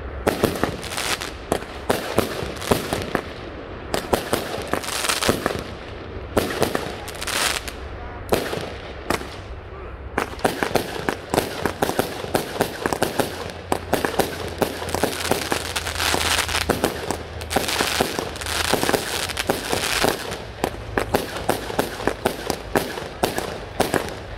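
200-gram consumer fireworks going off without a break: sharp bangs and pops several times a second, with spells of dense crackling.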